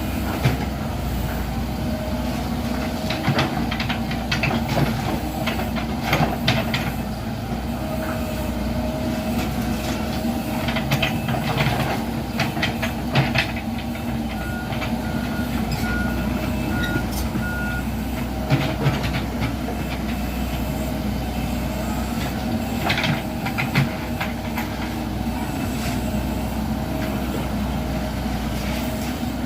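Komatsu PC78 hydraulic excavator running steadily as it works earth, with scattered metallic clanks. About halfway through, a short run of five even alarm beeps sounds.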